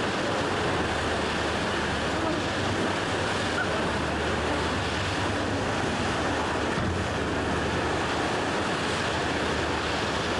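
Steady rush of wind and choppy water on the open deck of a tour boat, with wind buffeting the microphone and a low steady hum underneath.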